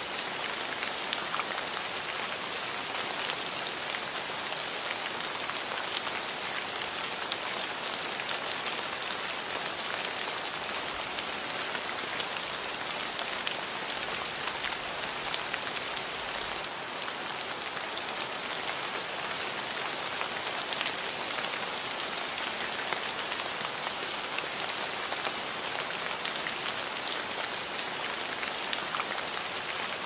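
Steady rain falling on a hard surface, an even hiss dotted with many separate drop hits.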